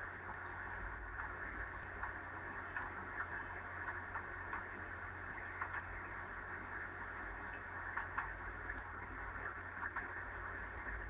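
Steady hiss and low hum from an open microphone on a narrow-band web-conference audio line, with a few faint clicks scattered through.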